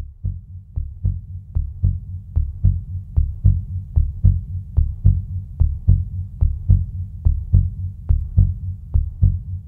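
Heartbeat sound effect: steady low double thumps, lub-dub, about 75 beats a minute.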